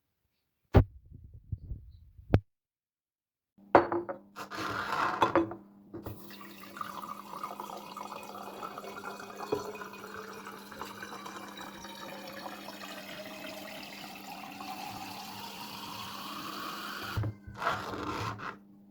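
Water running steadily from a tap for about eleven seconds, with a slowly shifting pitch as it fills or splashes. There are a few sharp clicks and knocks before it and household clatter just before and after it.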